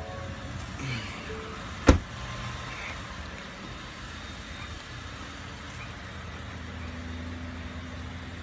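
A pickup truck door shuts with one sharp slam about two seconds in, after a couple of short chime tones, over the steady low hum of the truck's engine idling.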